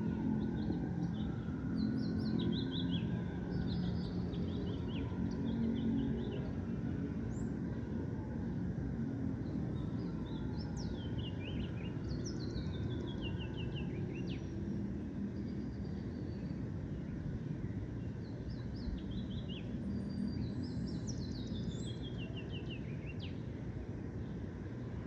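Several birds chirping and calling, with a couple of quick falling runs of notes, over a steady low rumble of distant city traffic.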